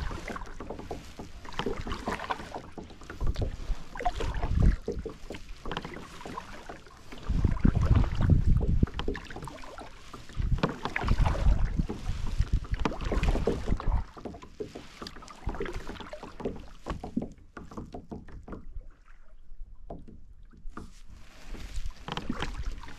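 Kayak paddling: a double-bladed paddle dipping into the water and splashing with each stroke, with water running off the blades. The strokes ease off and go quieter for a few seconds near the end, then pick up again.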